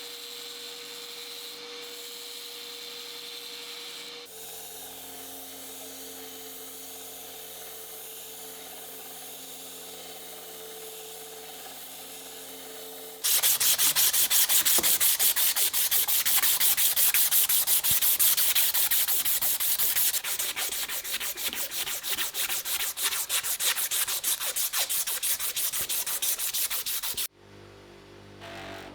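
Abrasive sanding of a rusty knife blade: fast back-and-forth rubbing strokes, loud and rhythmic, starting about halfway through and stopping abruptly near the end. Before that is a quieter stretch of faint rubbing over a steady low hum.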